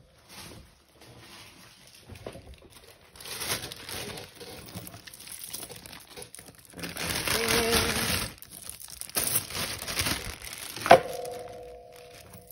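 Thin plastic bag crinkling and rustling as it is handled and opened, loudest for about a second around seven seconds in, with a sharp click near the end.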